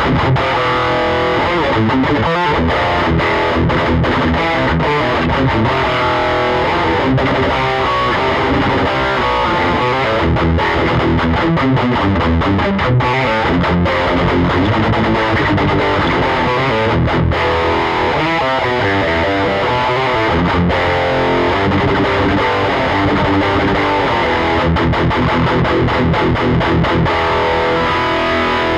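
Heavily distorted electric guitar riffing continuously through a 1988 Peavey Bravo 112, a small all-tube combo with two EL84 power tubes and a single 12-inch speaker, on its high-gain channel. Short stops between chords break up the playing in places.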